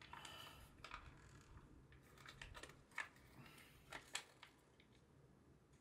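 Faint crinkling and tearing of a plastic juice pouch being torn open, with a few sharp crackles about three and four seconds in.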